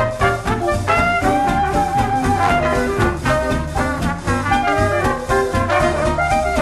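Background music: upbeat swing-style jazz with a brass melody over a walking bass and a steady beat.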